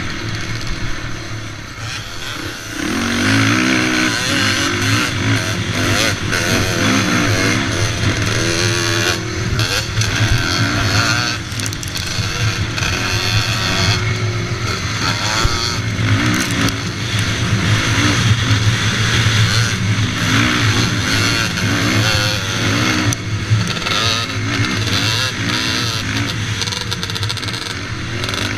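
Racing quad's engine heard from on board, revving up and down repeatedly as it is ridden hard around a motocross track, with short knocks scattered through.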